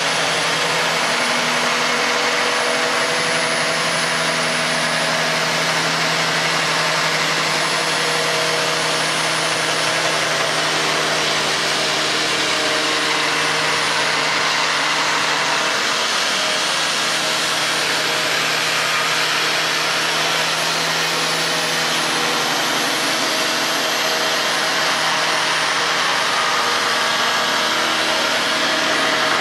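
Handheld electric belt sander running steadily as it sands along a long curved wooden piece, a thin high whine over the motor's steady noise.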